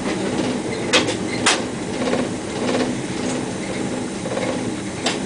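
Electric suburban train running, heard from inside the driver's cab: a steady rumble and hum with sharp clacks of the wheels over rail joints about a second in, again half a second later, and near the end.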